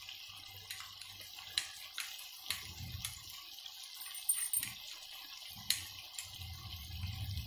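A spoon stirring cornflour and water in a small glass bowl, with liquid swishing and irregular light clinks of the spoon against the glass, mixing it into a lump-free slurry.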